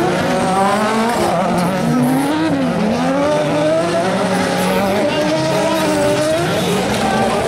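Several autocross buggy engines revving up and down as the cars race past on a dirt track, their pitches rising and falling and overlapping.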